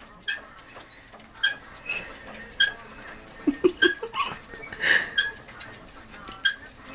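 A pet rat hopping in her exercise wheel. The wheel clacks and knocks in irregular sharp taps, about one or two a second, some with a brief high ringing.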